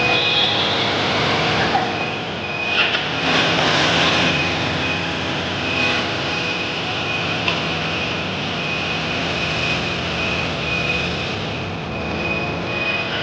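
Honda Africa Twin motorcycle engine running on an end-of-line roller test stand, amid a steady din of factory machinery. A high beep sounds on and off throughout, and a brighter hiss swells about three seconds in.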